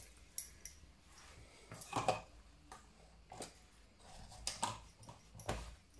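Faint, scattered light taps and clicks from kitchen items being handled beside a steel mixing bowl, about half a dozen in all.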